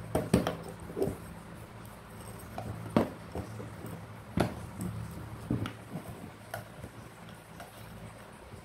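Metal parts of a small electric fan motor (end bracket and copper-wound stator) knocking and clicking as they are handled and fitted together by hand: irregular sharp clinks and taps, a few of them louder, over a steady low hum.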